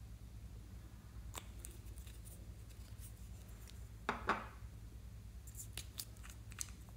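Faint handling of a small nail polish bottle: a few light clicks, a brief scraping rub about four seconds in, then a run of small clicks near the end as its screw cap is twisted, over a low steady hum.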